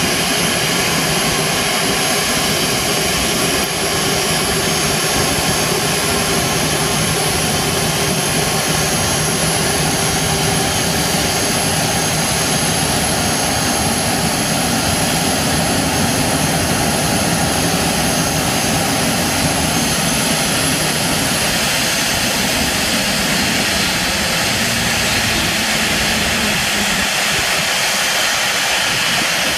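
Boeing 737-300 freighter's CFM56 turbofan engines running at taxi power, a steady jet whine and rush. A thin high whistle on top stops about three quarters of the way through.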